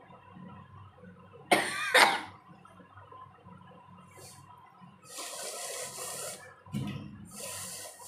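A woman forcefully blowing and snorting through her nose: two loud, sudden blasts about a second and a half in, then two longer hissing rushes of breath with a short low grunt between them.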